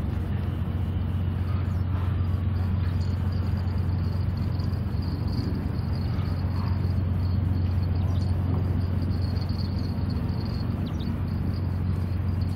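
Steady low hum and rumble of outdoor background noise, even throughout with no distinct events.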